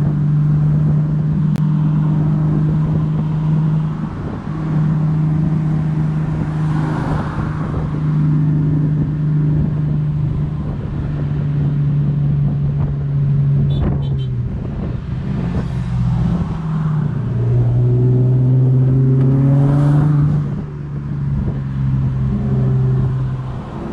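Car engine running hard at a steady pitch for long stretches, with short rushes of hiss. Near the end the revs climb for a few seconds, then fall back.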